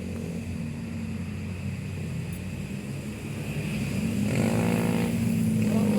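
Heavy bus engine climbing the hill, a steady low drone that grows louder about four seconds in as the bus approaches.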